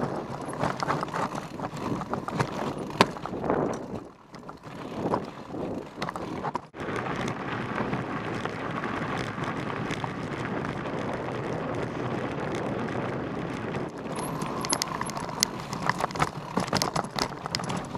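Mountain bike riding down a rocky trail: tyres crunching over loose stones, with rapid clicks and rattles from the bike over the bumps.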